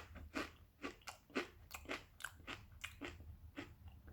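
Person chewing thick-cut kettle-cooked potato chips with their mouth near the microphone, a steady run of crisp crunches about three a second.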